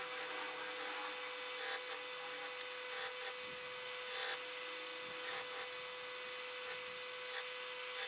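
Disc sander running with a steady hum as a small wooden cube piece is pressed against the sanding disc in short repeated passes, rasping each time the wood touches. The sanding rounds the piece's corners off.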